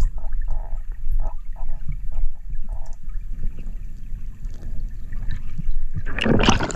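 Water heard underwater by a diving snorkeler: a muffled low rumble with scattered bubbling and clicks, then a loud rush of water near the end.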